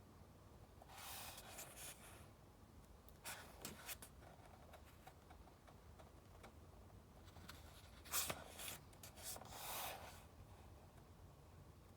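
Paper rustling as book pages are handled and turned, with light ticks. The rustles come about a second in, again around three to four seconds in, and a louder one around eight to ten seconds in that opens with a sharp tick.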